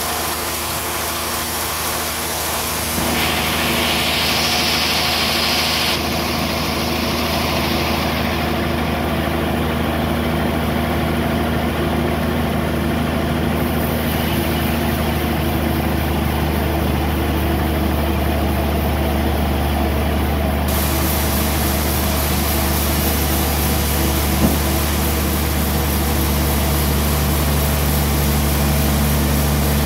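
Band sawmill running steadily with a low engine hum, a short hiss about three seconds in and a single click near the end.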